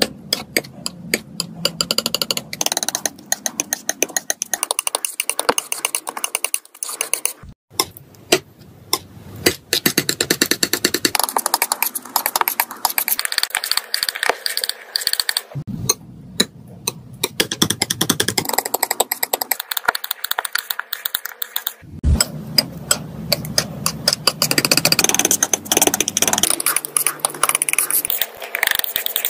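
Metal palette knife tapping, pressing and scraping thick paint on paper: quick runs of sticky, wet taps and clicks, broken by a few short pauses.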